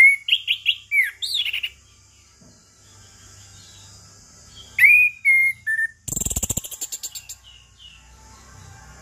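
Chestnut-capped thrush singing: two quick phrases of varied, sliding whistled notes a few seconds apart, the second followed by a short harsh rattling burst. A steady high hiss runs underneath.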